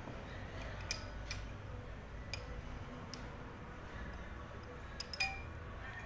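A steel spanner working a nut on a Mahindra Maxximo cylinder head, making scattered metallic clicks and clinks: a sharp click about a second in, a few lighter ticks, and a short ringing clink near the end.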